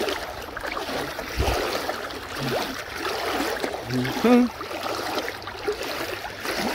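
Boots wading through floodwater, sloshing and splashing with each stride. A brief voice sounds about four seconds in.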